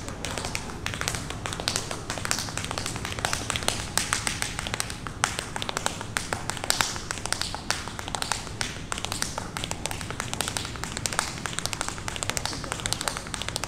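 Solo tap dancing with no music: tap shoes striking a wooden floor in fast, uneven runs of sharp clicks and heel drops, with brief gaps between phrases.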